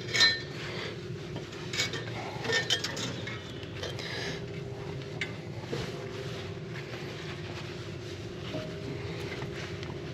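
Metal tools and hydraulic hose fittings clinking and clanking as seized hoses are worked off a crawler dozer, in scattered knocks that are loudest near the start and a couple of seconds in, over a steady low hum.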